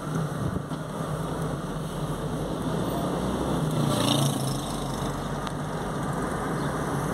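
Steady engine and road noise of a car heard from inside the cabin while driving, with a low hum throughout and a brief brighter swell about four seconds in.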